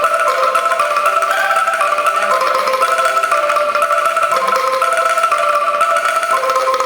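An angklung ensemble of tuned bamboo instruments plays the telolet horn melody, a steady run of notes doubled an octave apart and changing two or three times a second.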